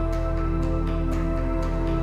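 Soft background music: a chord held steadily throughout.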